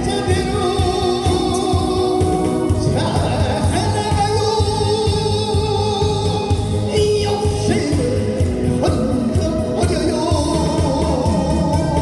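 Live trot song: a male singer singing into a handheld microphone over accompanying music with a steady beat.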